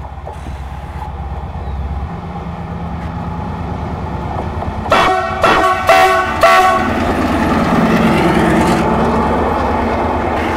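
CRRC CDD6A1 diesel-electric locomotive approaching, its engine rumble growing steadily louder, then sounding its horn in several short blasts about five seconds in. The locomotive then passes close, followed by the passenger coaches running by.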